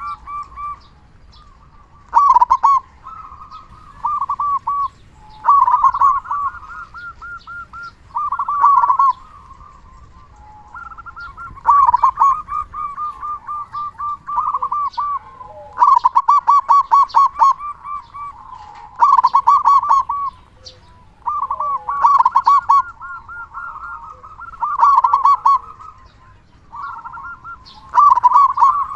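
Zebra dove (perkutut) cooing: a long run of repeated phrases of quick pulsed coo notes, each about a second long, coming every second or two.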